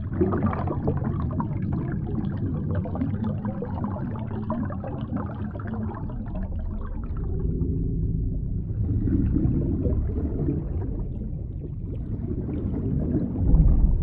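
Underwater recording of a breaking wave churning overhead, a dense rushing turbulence that eases after about seven seconds into a low underwater rumble. Two swells of noise follow, and there is a deep thump near the end.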